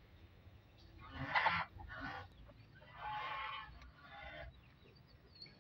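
Chickens giving about four short, hoarse clucking calls, spread a second or so apart.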